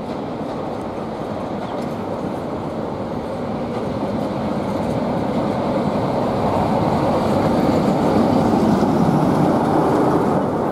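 Class 47 diesel-electric locomotive arriving with its coaches, engine and wheels on the rails growing steadily louder as it draws up alongside.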